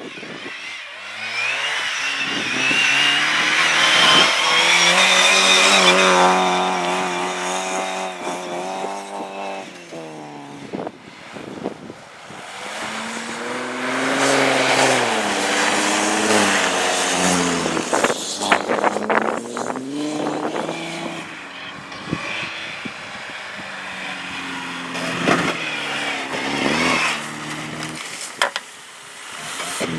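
A car engine revving hard on a race track, its note climbing, holding and dropping several times as the car accelerates and brakes through the corners, loudest about five seconds in and again around fifteen. Tyres squeal during the first several seconds.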